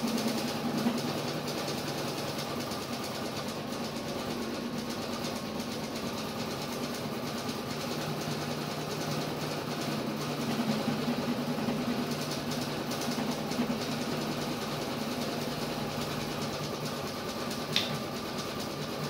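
A steady low mechanical hum, with a single sharp click near the end.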